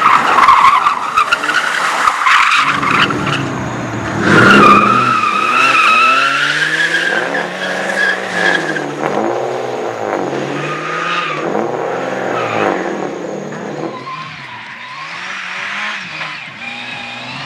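Drifting car with its engine revving up and down again and again and its tyres squealing as it slides, loudest about four seconds in and easing off near the end.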